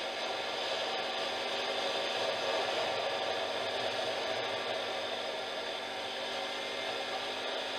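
Steady rushing noise of wind on the microphone mixed with tyres rolling over a loose gravel track while riding along it.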